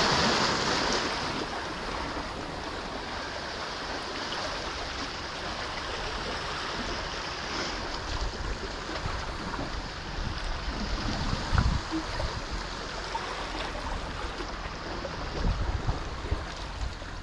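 Sea washing against the rocky shore, a steady rushing hiss that is louder in the first second, with wind on the microphone and a few low bumps near the end.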